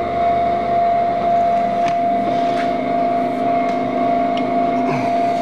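Steady electric motor hum with a constant mid-pitched whine, and a few faint clicks and knocks as the dough divider rounder's bar is lifted.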